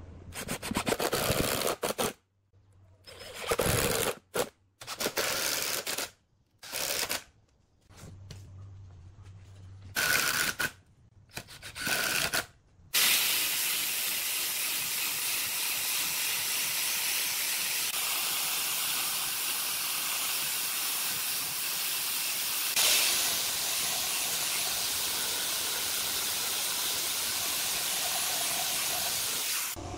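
Power drill driving long wood screws into pine blocks in about six short bursts, some with a steady motor whine. About 13 seconds in, an angle grinder with a sanding disc starts and runs steadily, sanding the curved pine with a constant hissing grind.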